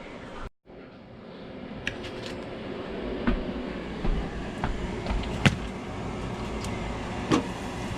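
A fish fryer running, hot oil bubbling with a steady rumbling hiss that builds over the first couple of seconds. Scattered light clicks and taps sit on top.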